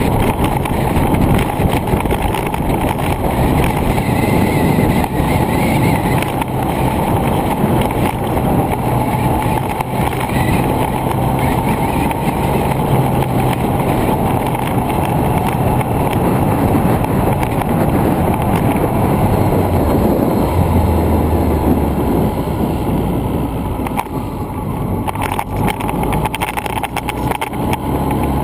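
Steady, loud wind rush on the microphone of a camera moving along a road, with a low hum underneath that drops in pitch a couple of times.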